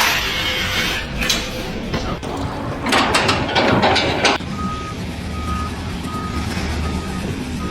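A vehicle's reversing alarm beeping at an even pitch, about one and a half beeps a second, from about halfway through, over a low engine rumble. Before the beeping there are loud stretches of rushing noise.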